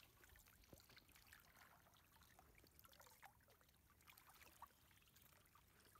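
Faint splashing and trickling of shallow water, with scattered small drips, as hands work a fishing net and pull fish from the water.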